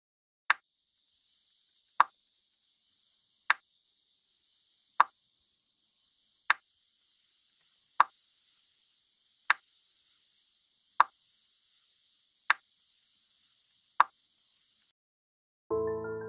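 Slow, even ticks, one sharp click about every second and a half, over a steady high hiss. The hiss stops about a second before the end and piano music comes in loudly.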